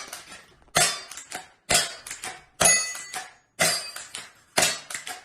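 Glock 34 style gel blaster toy pistol firing about once a second, five or six sharp snaps, each followed by a couple of quieter clicks.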